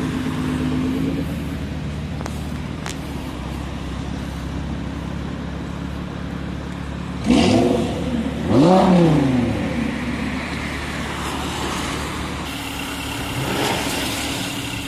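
BMW M4 coupe's straight-six engine running low and steady, then revved hard twice in quick succession about seven and eight and a half seconds in, its pitch rising and falling with each blip.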